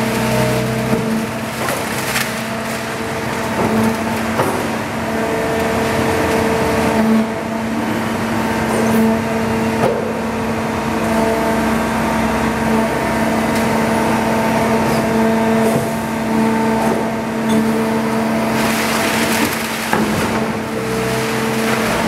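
Automatic continuous-feed scrap baler running, its hydraulic drive giving a steady hum, while loose metal scrap rattles and clanks into the hopper, with a few sharp metallic knocks along the way.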